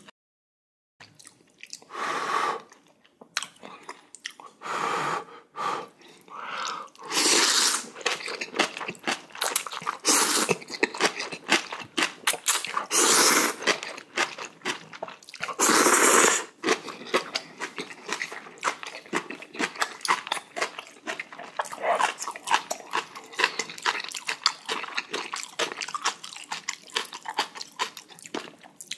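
Close-miked eating of spicy jjamppong noodles: about six loud slurps, each lasting half a second to a second, with wet chewing and small crunchy clicks between them.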